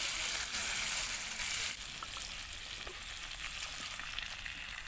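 Steady sizzling hiss with scattered faint crackles from cooking over a campfire; it drops to a lower level a little under two seconds in.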